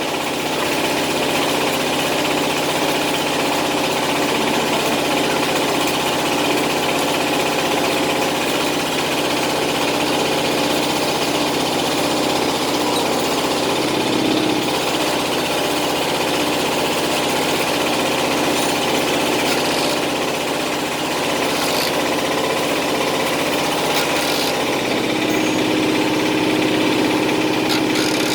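An engine idling steadily; its tone shifts slightly about 25 seconds in.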